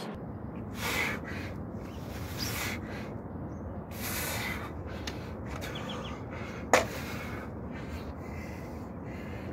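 A man's hard breathing during push-ups: short, forceful exhales roughly once a second, over a steady low rumble. One sharp click a little before seven seconds in.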